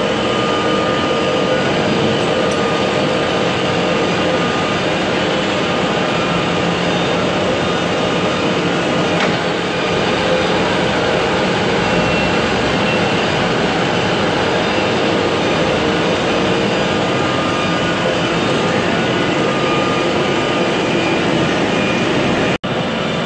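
Large metal-turning lathe running, spinning a 6-inch steel tool shank with coolant splashing over it: a steady mechanical noise with a few constant tones.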